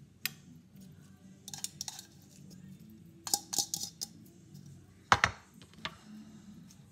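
Light clinks and taps of a bowl and fork against a glass baking dish as chopped spinach is scattered over it, several separate knocks with the loudest about five seconds in.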